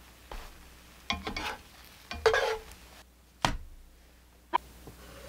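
Scattered light scrapes and clicks of a utensil against a nonstick frying pan as a thin egg sheet is turned, with one sharper knock about three and a half seconds in.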